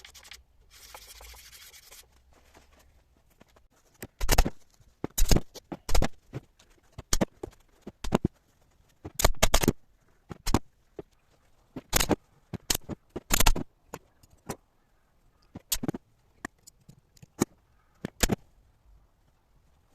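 Sandpaper rubbing over a wooden chair, stopping about two seconds in. Then come many loud, irregular knocks and clatters, spaced roughly half a second to a second apart.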